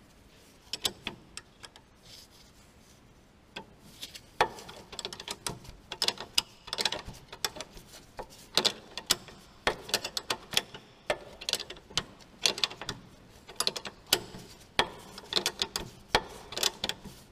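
Sharp metal clicks, irregular and often in quick runs, of a ratcheting wrench turning the top nut of a Fiat Bravo's anti-roll bar drop link while an Allen key holds the ball stud from turning. The clicking starts a few seconds in.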